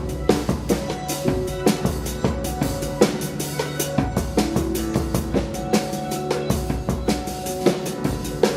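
Live band playing an instrumental passage: a busy drum kit with bass drum and snare hitting several times a second over sustained bass and pitched instrument notes.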